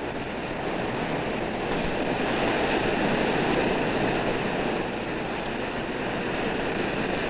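Ocean surf: a steady rush of waves that swells and eases slowly.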